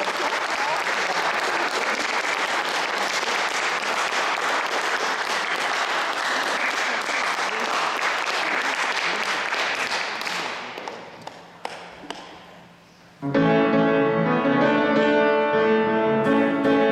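Audience applauding for about ten seconds, then dying away, with a couple of small knocks. After a second of quiet, instrumental music with held keyboard notes starts up about three-quarters of the way through.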